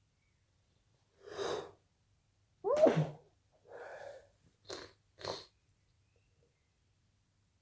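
A person's induced sneeze: a breathy intake about a second in, then one loud voiced sneeze about three seconds in, followed by a breathy exhale and two short, sharp breaths.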